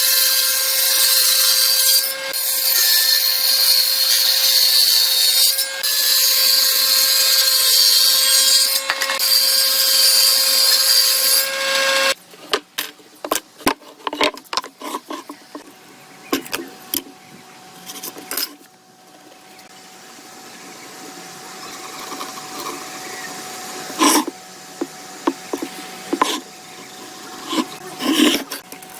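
An electric power tool works wood with a loud, steady whine and hiss, then cuts off suddenly about twelve seconds in. Scattered knocks and clicks of wood and tools being handled follow.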